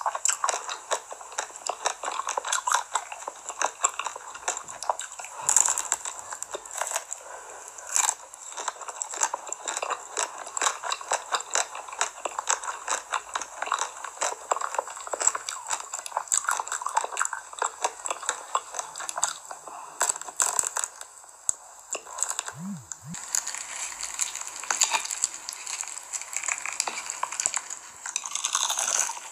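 Close-miked crackling and crunching of a chocolate-coated ice cream bar's hard shell being bitten and chewed, with dense rapid clicks. About 22 seconds in it gives way to the crunch of fried shrimp tempura being bitten and chewed.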